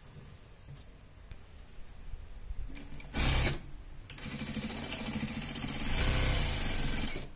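Electric sewing machine stitching through folded canvas with batting: a short run of stitches about three seconds in, then running steadily from about four seconds on, stopping just before the end.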